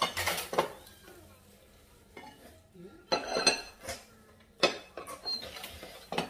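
Dishes and cutlery clinking and scraping at a dining table in several short bursts, while ginseng chicken is torn apart by hand.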